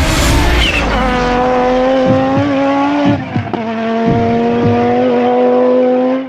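Rally car engine held at high, nearly steady revs, with several brief dips in the note, then cut off abruptly.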